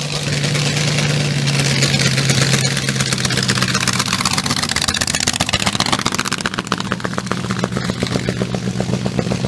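Vintage altered drag car's engine running hard and loud with rapid exhaust pulses as the car spins its rear tyres on dirt in a burnout. The engine pitch rises a little about three seconds in.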